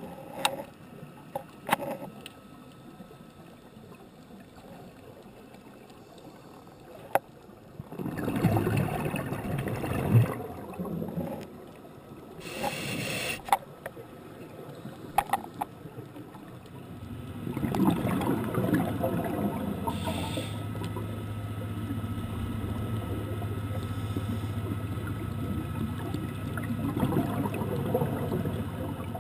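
Underwater scuba breathing through a regulator: a short hiss of inhaling and bubbling rushes of exhaled air, the longest starting a little past halfway. A low steady hum sits under the later bubbling, and sharp clicks are scattered through.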